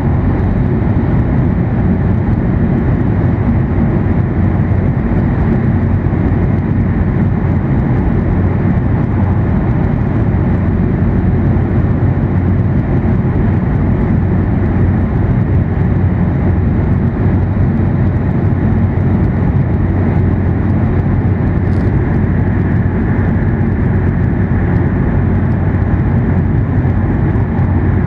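Steady low rumble inside the passenger cabin of an E7 series Shinkansen running at speed.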